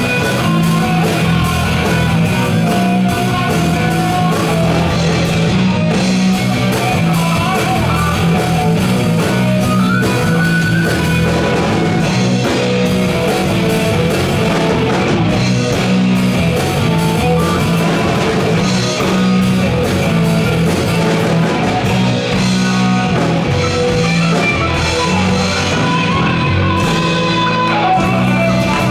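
Live rock band playing, electric guitar to the fore over bass and drums.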